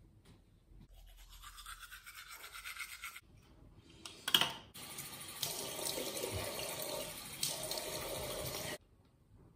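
Bathroom mixer tap running water into the basin while hands splash it onto a face: a steady hiss that starts just after a sharp click about four seconds in and stops suddenly near the end. Before it comes a fainter hiss lasting about two seconds.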